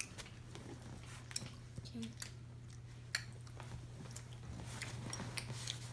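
Faint chewing and mouth smacks of children eating chewy sour candy belts: scattered small wet clicks, with a brief vocal sound about two seconds in.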